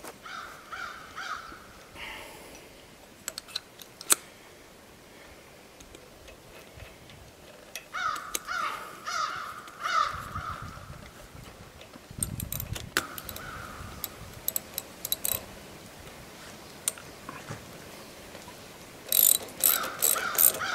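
A crow cawing in several short runs of calls, with sharp metal clicks and clinks from the nut being threaded onto an outboard motor's flywheel and a socket wrench fitted over it; the loudest clicks come about four seconds in and just before the end.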